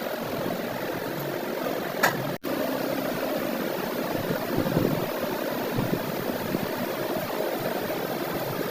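A machine running steadily with a mechanical hum, with a single sharp click about two seconds in.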